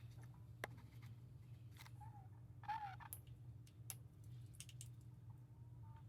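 Faint hand-tool work on metal screws: scattered light clicks and two short squeaks, the louder one about three seconds in, over a low steady hum.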